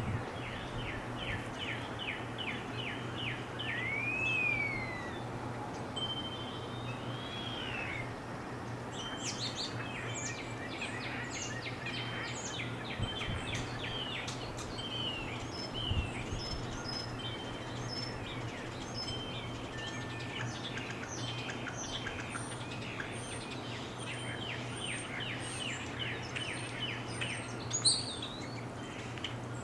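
Several wild songbirds singing and calling together. It opens with a quick run of repeated notes and a couple of slurred, arching whistles, then many overlapping chirps and short phrases from different birds.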